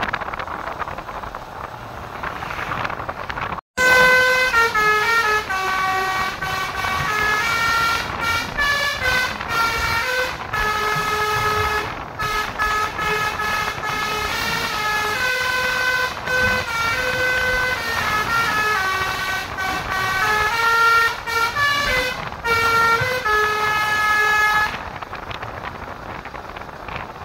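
Basuri musical multi-tone air horn on a tour bus, played by hand: a melody of held and stepping notes, very loud, starting suddenly about four seconds in over road noise and stopping a few seconds before the end.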